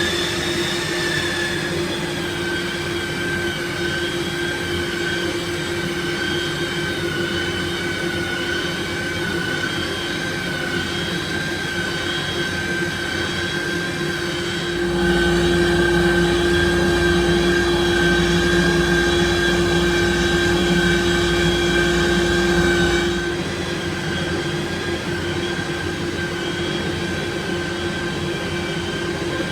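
Makita belt sander running steadily with a high whine while sanding brick mould. Past the middle it gets louder and rougher for about eight seconds, then eases back to its steadier run.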